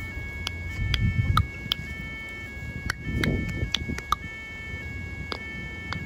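Pedestrian level-crossing warning alarm sounding: an electronic alarm of steady tones that step between several pitches, with sharp ringing strikes scattered through it, warning that a train is approaching. A low rumble swells about a second in and again about three seconds in.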